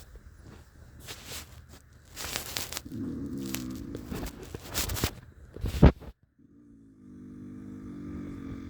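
Loud snoring with a rough, engine-like buzz likened to a dirt bike. There is a buzzing snore about three seconds in and a longer one from about six and a half seconds, with noisy rasping breaths before them and a sharp knock just before the second snore.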